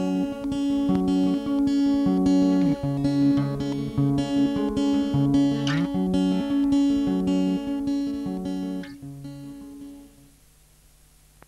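Guitar music: plucked notes over a held drone-like tone, with a few notes sliding up in pitch. It fades out about nine to ten seconds in.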